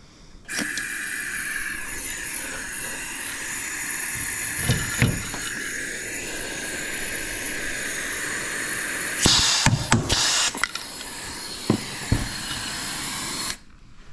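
Air-powered rivet gun hissing steadily while it sets a rivet and pulls the panel in tight, with a few sharp clunks partway through and later on; the hiss cuts off suddenly near the end.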